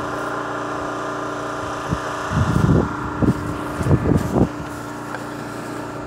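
A steady engine hum runs throughout. Between about two and four and a half seconds in, several short, loud low rumbles break over it.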